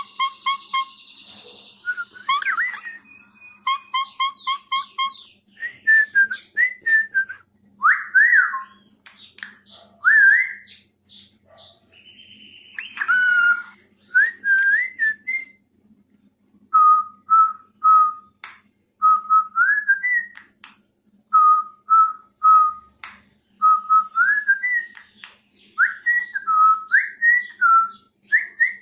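A whistled tune in short notes, some held at one pitch and repeated several times, others gliding upward or zigzagging. Short sharp chirps fall between the notes. It is whistled for cockatiel chicks to learn.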